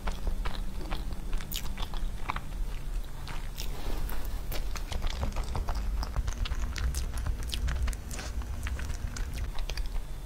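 Close-up chewing and biting of a soft chocolate cream roll cake: many quick, irregular wet mouth clicks and smacks.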